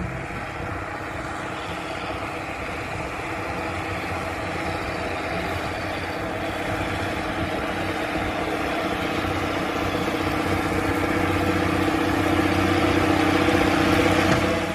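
Tractor engine running at a steady pitch, growing louder as it draws nearer, then cut off abruptly at the end.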